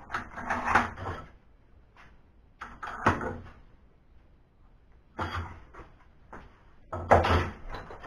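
Metal clunks and clatter from a heavy bench vise and steel tools being handled on a metal workbench: four short bursts of knocking about two seconds apart, the last the loudest.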